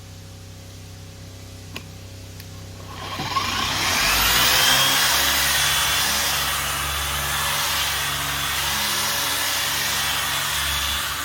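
Electric car polisher starting up about three seconds in with a rising whine, then running steadily as it buffs wax on the paint.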